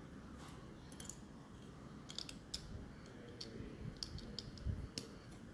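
Plastic Lego bricks clicking as small hands fit and press pieces together, a string of short, sharp clicks at irregular intervals.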